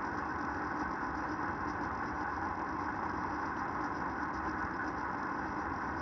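Steady, unchanging droning hum with hiss, with no events or changes.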